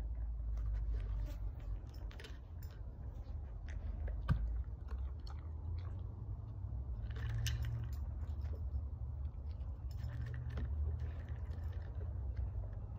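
A dog chewing and crunching dry treats, with many small clicks and a sharp knock about four seconds in, over a steady low rumble.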